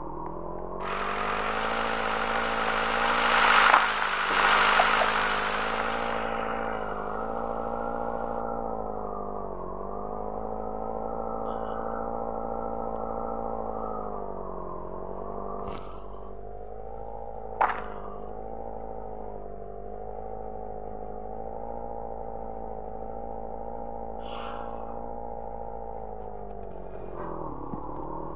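A vehicle engine running steadily, its pitch dipping and coming back up a few times. A louder rushing noise sits over it for the first several seconds, and a sharp click comes a little past halfway.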